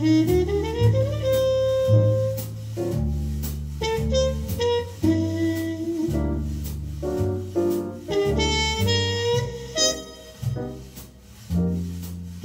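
Small acoustic jazz group playing a ballad-tempo tune: a horn melody over piano, walking double bass and cymbals, with the bass stepping about one note a second.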